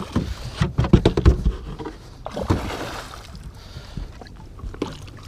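Water splashing as a hooked musky thrashes beside the boat, with a cluster of dull knocks about a second in.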